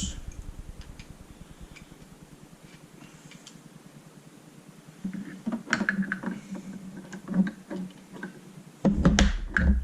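Small parts of a paintball marker being handled and unscrewed: scattered light clicks, then a busier run of knocks and clicks about five seconds in, and a louder low knock of handling near the end.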